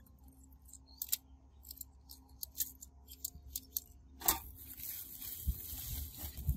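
Light clicks and taps of small parts being handled, then about four seconds in a sharp crinkle and steady rustling of a woven plastic sack being lifted and pulled open.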